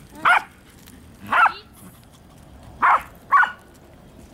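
A dog barking: four short barks, the last two close together.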